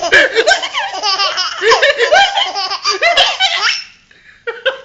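An 11-month-old baby laughing in a long run of high-pitched giggles, breaking off about four seconds in, then a few more short laughs near the end.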